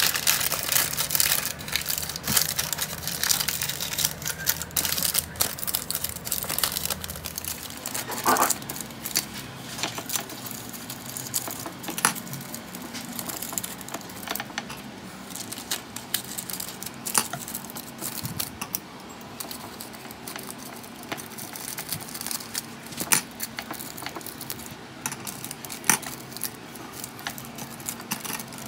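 Crinkling and rustling with many scattered sharp clicks and clinks, as of things being handled; the crinkling is densest and loudest for the first several seconds, and a brief squeak sounds about eight seconds in.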